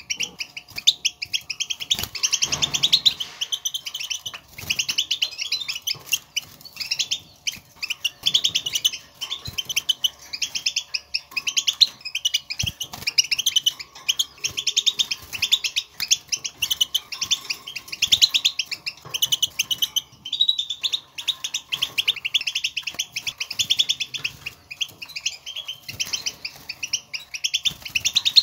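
European goldfinch twittering: a fast run of short, high chirps and trills that keeps going in phrases with brief gaps. This is the goldfinch's contact chatter, which the birds use to call to one another and announce where they are.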